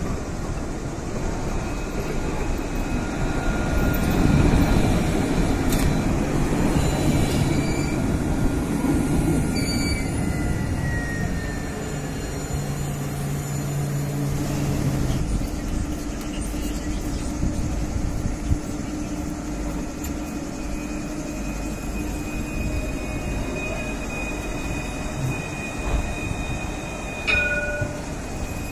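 Alstom Citadis low-floor trams: one runs in close by with wheels rumbling on the rails and a motor whine that falls in pitch as it brakes, then a steady electric hum. After that a tram stands humming at the platform, with a short beep near the end.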